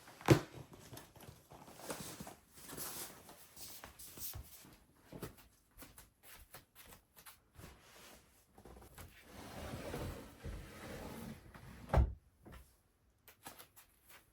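Household handling sounds: a sharp knock just after the start and another around twelve seconds, with rustling, light knocks and scraping in between, as things are moved and put away.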